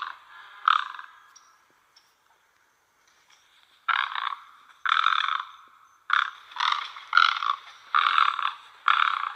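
Great egrets giving rough, croaking calls: one call, a quiet gap of about three seconds, then a rapid run of calls spaced about half a second to a second apart.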